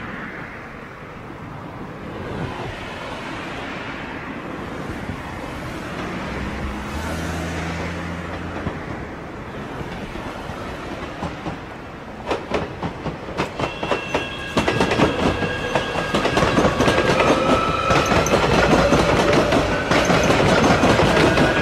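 JR Shikoku 8600 series electric train passing through station trackwork: a steady rush at first, then rapid sharp clicks of wheels over rail joints and points from about twelve seconds in. From about a second or two later, the traction motors' whine rises steadily in pitch as the train picks up speed, and it grows louder as the train comes by.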